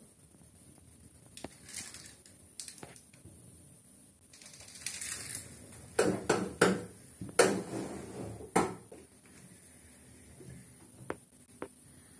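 Handling noise as a painting is turned on its pivot: a brief rustle, then a quick run of sharp knocks and clicks about six to nine seconds in, and a couple of faint ticks near the end.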